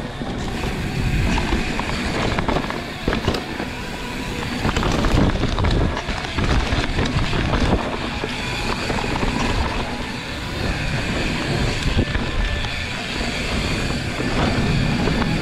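Mountain bike riding fast over rough trail: a steady rumble and rattle with frequent sharp knocks from bumps, and wind buffeting the microphone.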